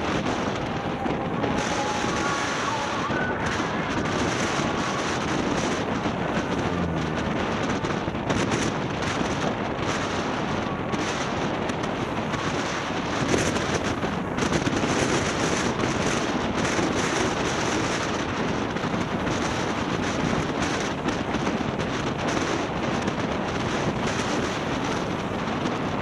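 Steady rush of wind buffeting the microphone over the rumble of a moving vehicle.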